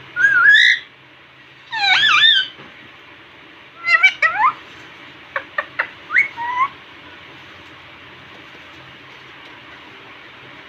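Indian ringneck parrot vocalising: four bursts of short squawks and whistle-like notes that glide up and down in pitch, all in the first seven seconds.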